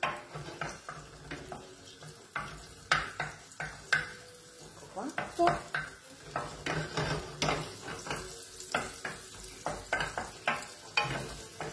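Diced pancetta frying in butter in a skillet, sizzling, while a spoon stirs it, scraping and knocking against the pan in repeated irregular strokes.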